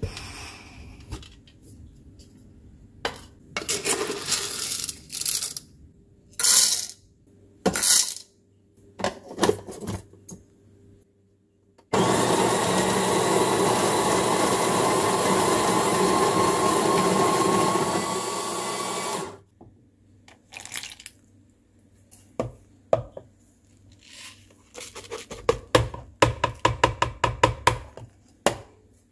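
Capresso burr coffee grinder running steadily for about seven seconds, grinding coffee beans. Before it come scattered clatters and knocks of handling a coffee canister, and near the end a quick run of rattling taps.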